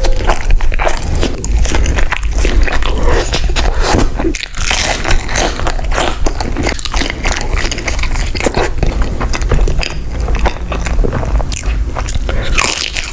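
Close-miked biting and chewing of food, with many crisp crunches in an irregular run.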